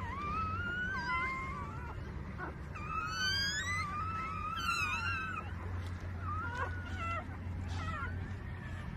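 Newborn puppies squeaking and whining in high, wavering, mewing cries, several overlapping and busiest in the middle, over a steady low hum.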